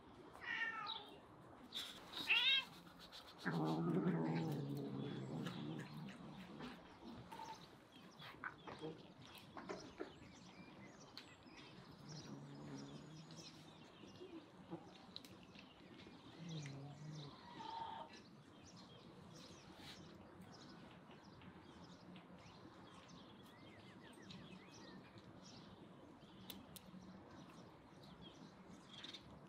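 Domestic cat yowling: one long, low, drawn-out call about four seconds in, then a few shorter low calls later on.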